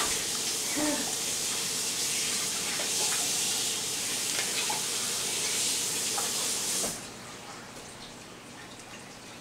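Kitchen tap running steadily as a tablespoon is rinsed under it, shut off abruptly about seven seconds in.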